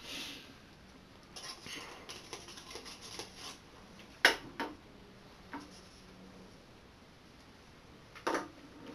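Handling noise from a soda can: soft rustling for a couple of seconds, then a few sharp clicks and knocks, the loudest about four seconds in and another near the end.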